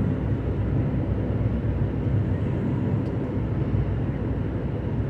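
Steady low rumble of a vehicle travelling on a highway: road and engine noise with no change in pitch or level.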